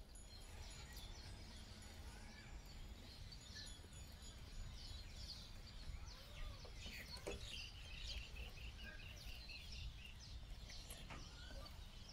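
Outdoor ambience of small birds chirping and calling in short, repeated notes, with a brief trill about two-thirds of the way through, over a low steady rumble.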